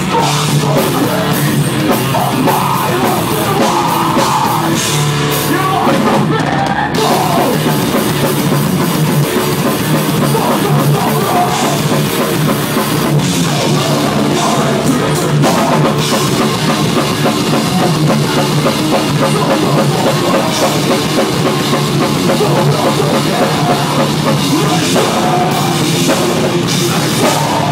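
Thrash metal band playing live: distorted electric guitar over a drum kit, loud and continuous.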